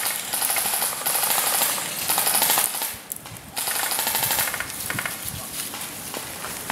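Airsoft guns firing on full auto, a rapid rattle of shots. It breaks off briefly about three seconds in, resumes for about a second, then thins to scattered fire.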